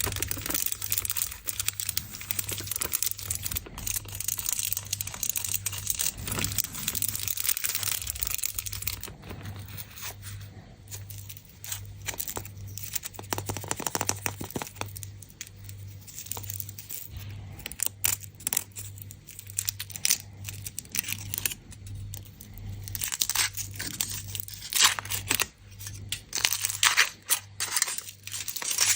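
Foil wrappers of Kinder Surprise chocolate eggs being torn and crinkled open by hand, a continuous rustling with many small sharp crackles and clicks.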